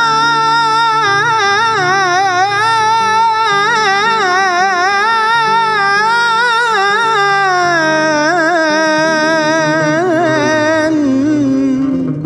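Arabic devotional music: one long, heavily ornamented melodic line with wide vibrato, holding high and then stepping down in pitch about two-thirds of the way through, over a steady low accompaniment.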